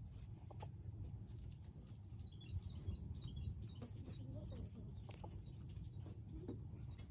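A quick run of faint bird chirps about two seconds in, over a low background rumble, with a few scattered clicks.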